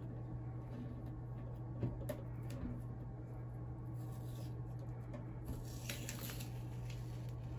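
Blue painter's tape being peeled off paper at the edge of a painting: a couple of small clicks, then two longer scratchy stretches of tape pulling away, about four seconds in and again around six seconds in.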